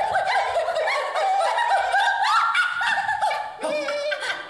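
Several women's voices improvising together, overlapping in short, high, gliding vocal notes mixed with laughter.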